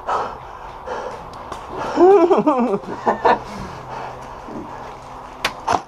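A man's brief wordless vocal sound about two seconds in. Then, near the end, a few sharp clicks of airsoft BBs striking cover and ricocheting.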